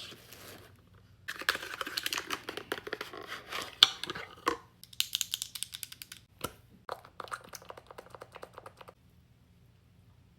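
Skincare product packaging being handled and opened: bursts of rapid, fine clicking and rustling, with one sharper knock partway through, then quiet for the last second or so.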